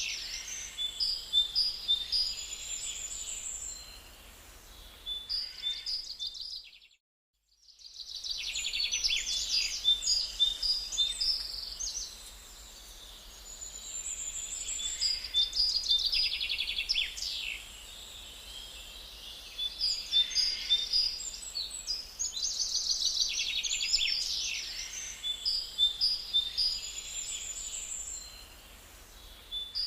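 Songbirds singing and chirping, with many short, high trills and repeated notes over a faint steady hiss. The sound cuts out completely for about a second roughly a quarter of the way in, then the birdsong resumes.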